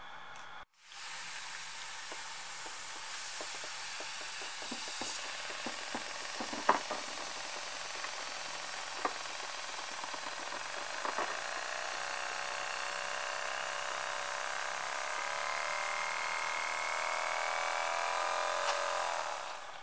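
Compressed air hissing through a tiny pneumatic motor made entirely of paper, with a few light clicks at first. From about halfway a buzzing tone climbs slowly in pitch as the motor speeds up, and all of it stops just before the end.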